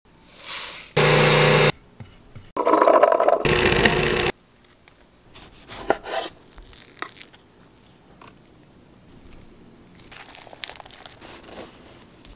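A food processor runs in two loud bursts, its blade whirring and rattling through dry grains. Then come quieter knife cuts on a wooden cutting board: a knife slicing through a tomato about halfway through, and more knife crunches near the end.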